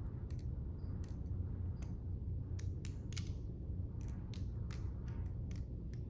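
Defcon Knives Accel quick-change balisong being flipped: handles and blade clicking and clacking against each other in quick, irregular strikes, over a steady low hum.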